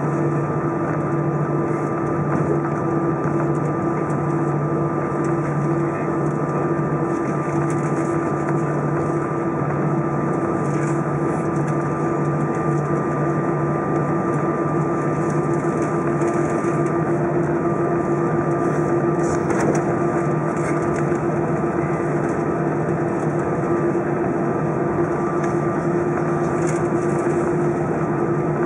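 Airbus A320 jet engines at taxi power heard inside the passenger cabin: a steady hum with several constant tones over an even rush of air.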